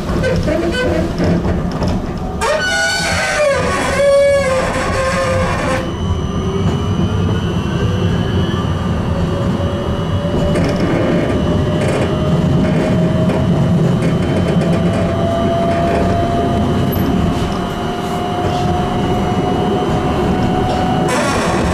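Tram running with a steady low rumble. For a few seconds near the start there is a wavering pitched sound with many overtones. After that an electric whine rises slowly in pitch as the tram picks up speed, over a steady high hum.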